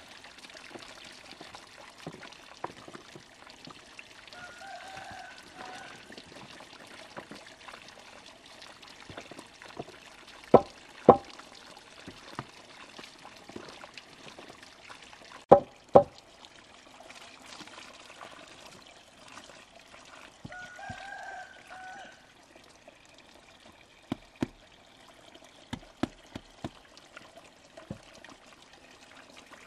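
Water pouring and trickling steadily, with two pairs of sharp knocks near the middle and a few lighter knocks near the end.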